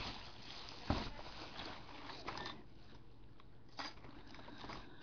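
Faint handling sounds over a quiet room hiss: one soft tap about a second in, then a few fainter clicks.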